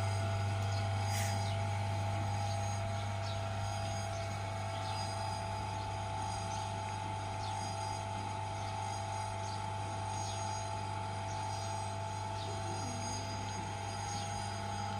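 Motor of a potter's wheel humming steadily as it spins, with a few faint ticks over the hum.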